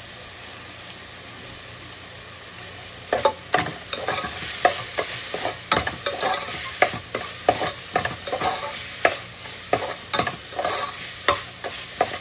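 Ground turkey sizzling as it browns in a frying pan. From about three seconds in, a utensil stirs it, knocking and scraping against the pan about twice a second.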